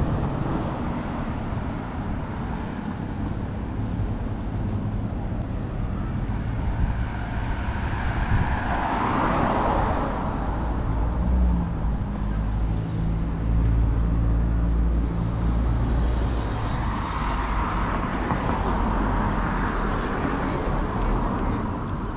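Road traffic: vehicles pass with tyre and engine noise, two passes swelling and fading, and a heavier engine runs low through the middle. A thin high-pitched squeal sounds for about three seconds near the two-thirds mark.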